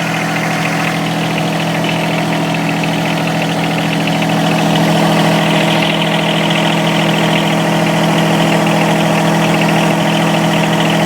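John Deere 1023E compact tractor's three-cylinder diesel engine idling steadily as it warms up.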